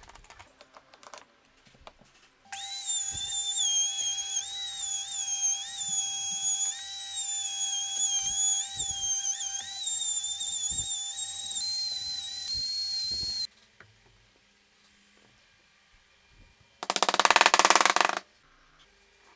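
Small high-speed electric power tool whining, its pitch dipping and recovering again and again as it bites, then cutting off suddenly. About a second and a half later a short, harsher and noisier burst follows.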